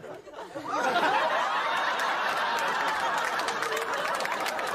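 Studio audience breaking into laughter less than a second in and laughing on steadily, many voices at once.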